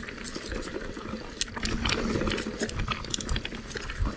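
Mountain bike rolling down a rocky dirt trail: tyres crunching over stones and the bike rattling, with many sharp clicks and knocks over a constant low rumble.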